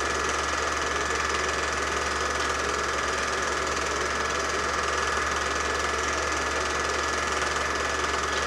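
Home-movie film projector running: a steady mechanical running sound with a thin, steady high whine over a low hum.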